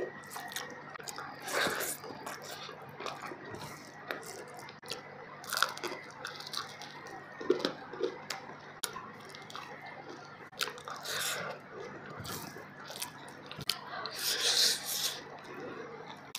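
A person eating fish biryani by hand: chewing and mouth sounds coming in short, irregular bursts.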